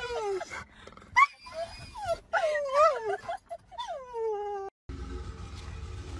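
A dog in a car whining and yelping in high cries that slide up and down, stirred up at the sight of a cat, ending in one long falling whine. After a sudden cut near the end, a steady low hum.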